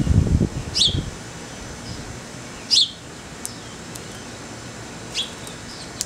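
Sparrows at a seed feeder giving three short, falling chirps, the middle one the loudest. A low gusty rumble of wind on the microphone in the first second.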